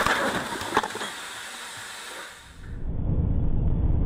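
A noisy hiss and rattle dies away over about two seconds, with one sharp knock about a second in. It then gives way to the steady low rumble of a vehicle's engine and tyres on the road, picked up by a dash camera inside the cab.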